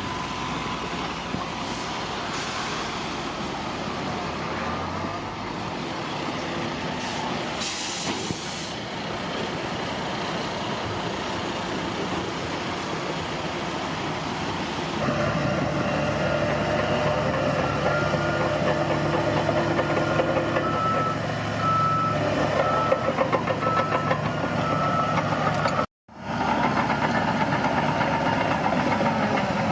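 Bulldozer's diesel engine running, louder and working harder from about halfway through. A reversing alarm beeps several times, about once a second, in the second half, and the sound cuts out for an instant near the end.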